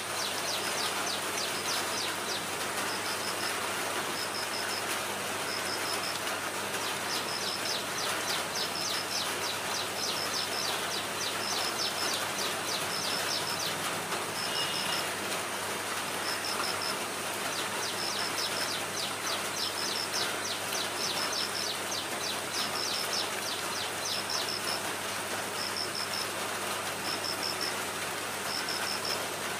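Steady rain falling on foliage, with a short high chirp repeating about once a second.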